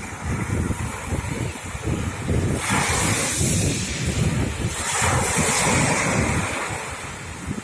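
Sea waves breaking and washing up the shore, with two loud surges about three and five seconds in, over a steady rumble of wind on the microphone.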